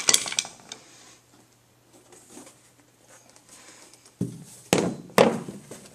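Handling noise close to the microphone: scattered rustles and knocks, a few at the start and the loudest cluster about four to five and a half seconds in, as something is reached for and moved.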